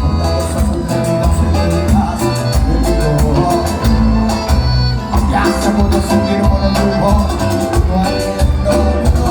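Live cuarteto band playing an instrumental passage: a steady, driving bass beat under held melody notes, with no singing.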